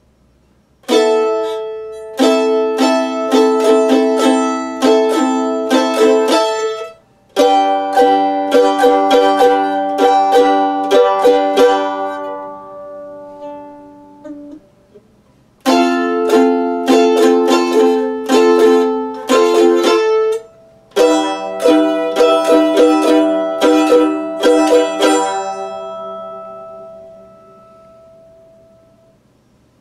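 Mandolin playing chords in rhythm, in four phrases with short breaks between them; the last chord is left ringing and fades out near the end.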